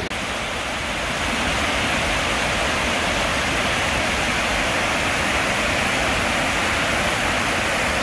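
Water rushing over a low concrete river weir: a steady, even rush.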